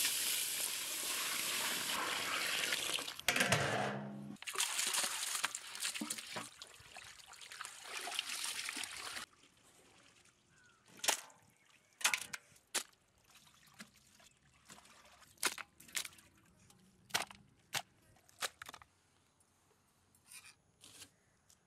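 Water pouring and trickling over bamboo rice to set it soaking, for about nine seconds, then stopping. After that, scattered light taps and clicks.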